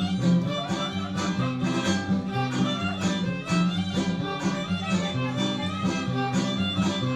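Huasteco string trio playing a lively polka: violin melody over strummed jarana and huapanguera, with a steady alternating bass and about two strums a second.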